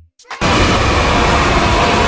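Kids cheering sound effect: a crowd of children yelling and cheering, cutting in suddenly about half a second in and staying loud and steady.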